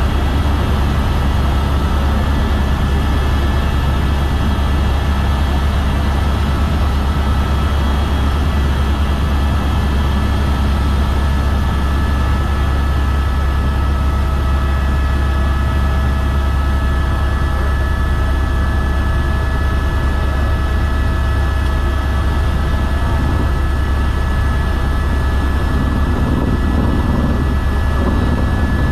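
Helicopter in flight, its rotor and turbine engine running steadily: a loud, constant low drone of the rotor blades with a thin, even whine of the turbine above it.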